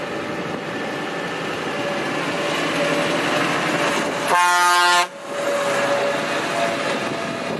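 Steyr 6185 tractor driving past on a road, its engine and tyre noise growing louder as it comes closer. About halfway through it gives one loud horn blast lasting under a second, then carries on running.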